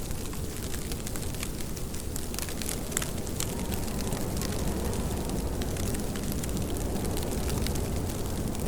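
Rain falling steadily: a constant low rush with many small drop taps and ticks scattered through it.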